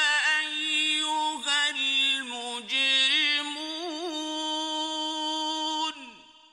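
A male Quran reciter's voice holding a long melodic phrase, the sustained vowel ornamented with wavering turns, then breaking off about six seconds in, with a short reverberant tail fading away.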